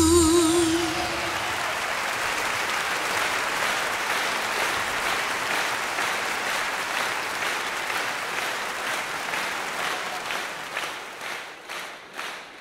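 A singer's final held note, wavering, dies away in the first second or so, then an audience applauds. Near the end the applause thins out into scattered single claps.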